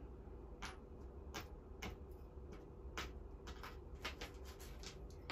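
Small metal wood screws clicking against each other as they are picked out of a pile by hand: faint, irregular light clicks that come faster about four seconds in.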